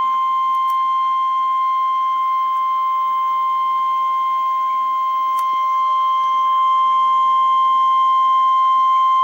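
NOAA Weather Radio 1050 Hz warning alarm tone: a single loud, steady tone held without a break. It is the signal that a warning message is about to be read.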